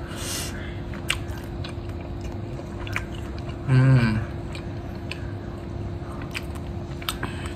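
A man chewing a mouthful of fried flat rice noodles (char kway teow), with soft mouth clicks and smacks. A short hummed 'mm' a little under four seconds in.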